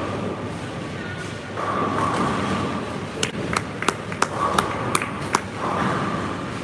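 Bowling alley din: a steady rumble of balls and lane machinery, with a run of about seven sharp clacks about a third of a second apart in the middle.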